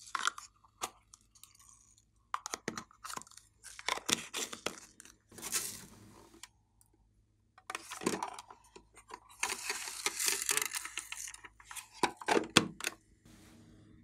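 Plastic toy containers handled and opened by hand: a jar of foam beads twisted open, then a plastic clay case handled. Irregular clicks, crinkling and scraping, with a longer rustle a few seconds from the end.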